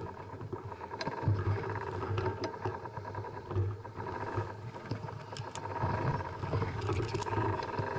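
Mountain bike ridden along a dirt trail, heard from a camera mounted on the bike: a steady rumble of tyres and drivetrain with scattered clicks and rattles.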